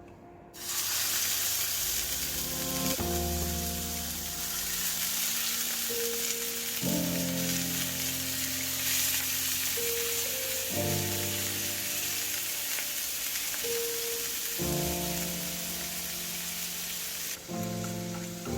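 Food sizzling in hot oil in a frying pan, a dense hiss that starts suddenly about half a second in and eases near the end. Background music plays throughout.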